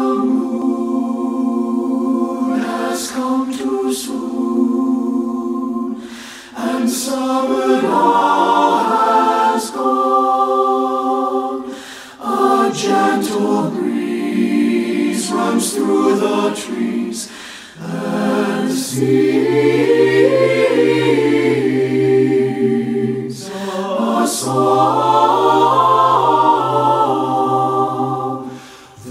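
Mixed SATB choir singing a cappella in slow, sustained chords, in phrases of about five or six seconds with short breaks for breath between them. Low bass voices come in more strongly about two-thirds of the way through.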